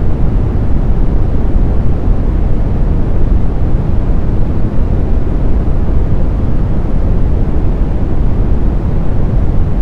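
Synthetic brown noise: a steady, deep hiss without tones or rhythm, strongest in the low end and fading toward the highs.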